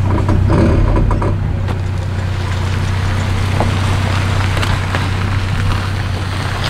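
Pickup truck towing a travel trailer slowly over gravel: the engine runs with a steady low hum, and the tyres roll and crunch over the stones.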